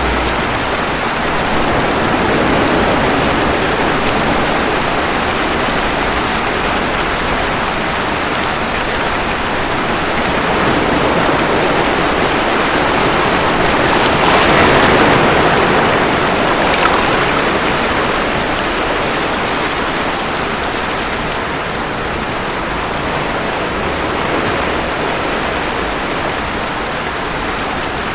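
Steady rain mixed with ocean waves washing ashore, a dense even hiss that swells and ebbs slowly, loudest about halfway through.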